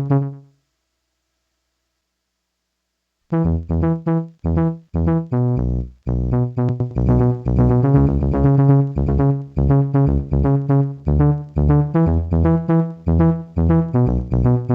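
Yamaha PSR-36 keyboard playing synthesizer notes through a Vivlex Time Maker delay pedal set to ping-pong delay. The notes stop at the start and there are about three seconds of dead silence. Then a fast run of repeated notes over a steady bass line begins and keeps going.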